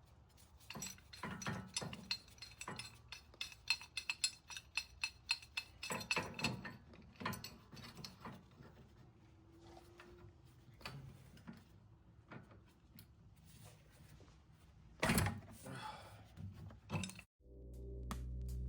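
Hand tools working on a car's steering rack: runs of quick ratchet-wrench clicks and metal clinks, with a couple of louder clanks near the end. Music fades in just before the end.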